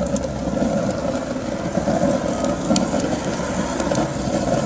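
Fire burning in a homemade rocket stove with the draft pulling the flames in: a steady low rumble with a few faint crackles.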